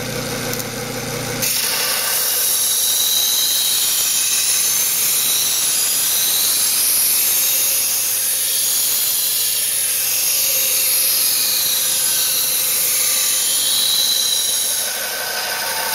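Belt grinder with a coarse abrasive belt grinding the edge bevel of a steel kitchen knife held in an angle jig: a steady, loud, hissing grind that begins about a second and a half in over the running motor, taking out nicks and shaping the bevel.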